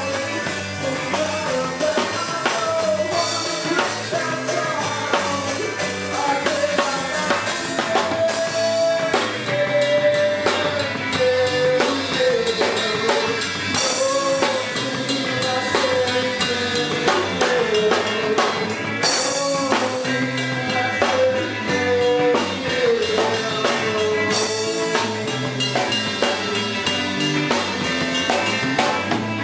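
Rock band playing: a drum kit with bass drum and snare keeps a steady beat under a wavering, bending lead line.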